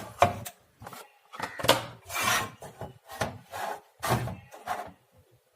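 Handling noise: a string of short, irregular rubbing and scraping strokes as parts and wiring of the amplifier build are moved and worked on.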